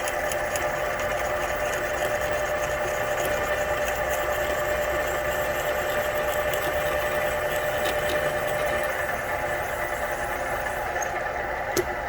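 Winona Van Norman PH 6000 DA seat-and-guide machine running steadily, driving a 21/64 drill bit into a cylinder head bolt hole to open it up for a thread repair insert. A sharp click comes near the end.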